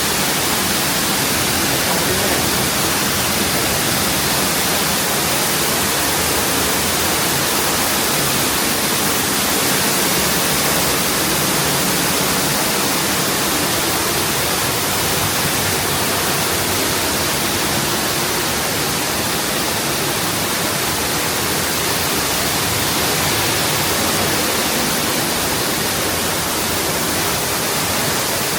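Waterfall rushing steadily: a loud, even hiss of falling water that does not change.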